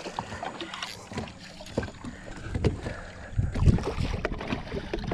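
Water splashing as a hooked snook thrashes at the surface beside the boat, with scattered clicks and knocks of the rod and spinning reel being worked. Wind buffets the microphone, more strongly from about three and a half seconds in.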